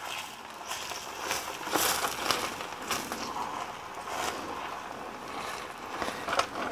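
Egg and ground-beef batter sizzling on a hot waffle iron, with a utensil scraping and tapping against the mixing bowl several times as the mixture is pushed out onto the plate.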